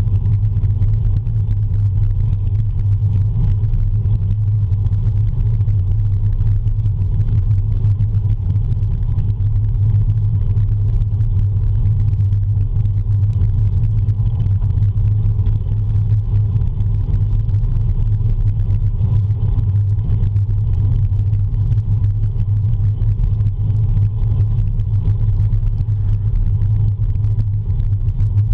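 Steady, loud low rumble of wind buffeting and road vibration on a camera mounted to a road bike's handlebars while riding at speed in a group.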